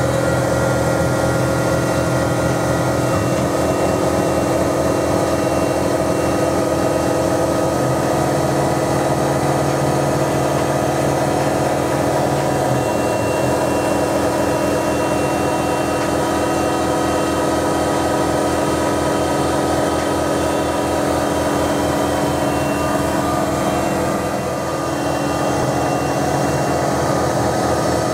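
Denford Novamill CNC milling machine running as a fine pointed cutter machines a brass name plate. There is a steady hum with several held tones, and a lower tone that shifts a few times as the machine moves.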